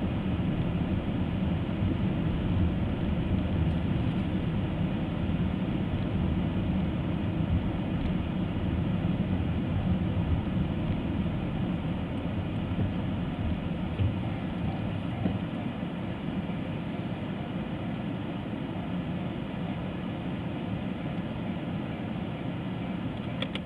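Steady low rumble of vehicle noise, slowly fading.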